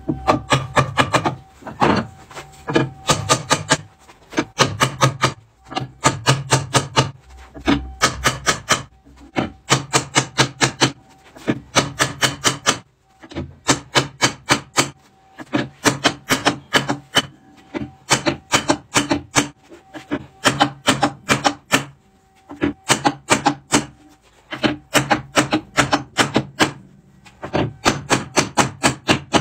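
Rapid bursts of sharp knocks on wood, several a second, with short pauses between the bursts, like a hammer tapping wooden joints.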